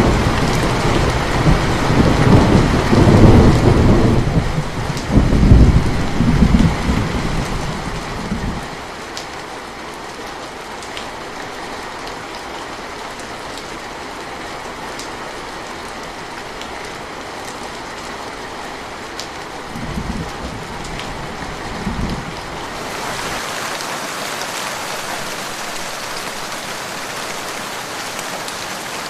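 Steady heavy rain with a long rolling rumble of thunder over the first third, then two short low rumbles about two-thirds of the way in. Near the end the rain changes suddenly to a brighter, thinner hiss.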